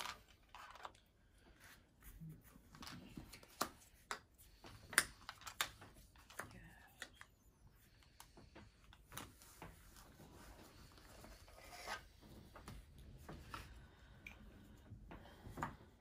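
Faint, scattered clicks and taps of board-game pieces and cards being handled and set down on a tabletop game board.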